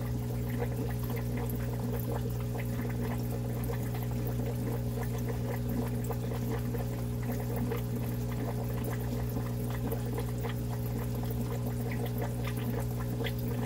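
Aquarium equipment running: a steady low electric hum with water trickling and splashing over it.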